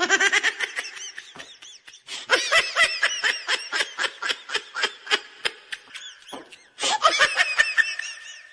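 High-pitched laughter in quick, repeated bursts: three bouts of fast ha-ha-ha with short breaks between them.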